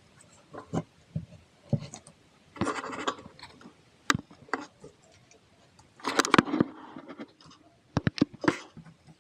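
Handling noises from a repair bench: a string of sharp clicks and taps with two short bouts of scraping and rubbing, about two and a half seconds in and again about six seconds in.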